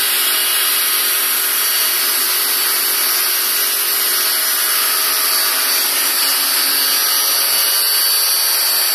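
Makita HW102 electric pressure washer running steadily, its universal motor and pump whining under the hiss of the high-pressure water jet spraying against a car's bodywork.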